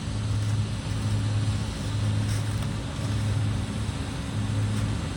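Farm machinery diesel engine running steadily, a low hum that swells and eases every second or so.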